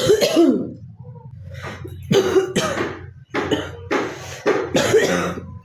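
A girl coughing, a run of about eight harsh coughs, the first one long and drawn out, the rest short and in quick pairs.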